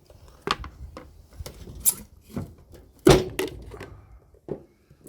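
A series of knocks and clunks from the Victa enviromower's 24 V battery pack being disconnected and handled, with small handling rattles between them; the loudest clunk comes about three seconds in.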